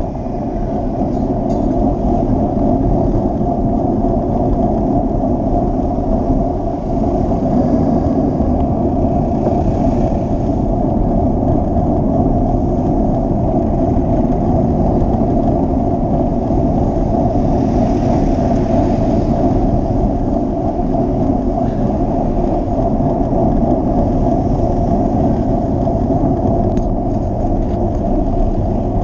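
Steady wind rumble on the microphone of a moving rider, over the running engines of slow road traffic alongside.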